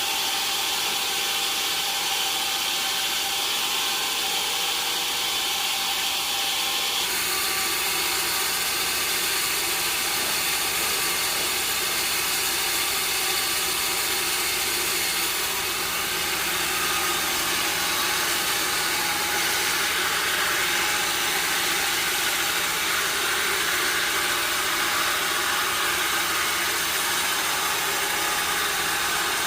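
Sawmill machinery running steadily, a continuous mechanical noise with a faint steady hum in it; the sound changes abruptly about seven seconds in.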